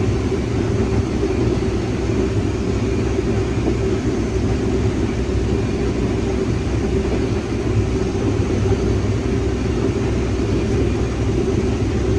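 Farm harvest machinery running steadily in the field during corn harvest: a continuous low engine drone that does not change.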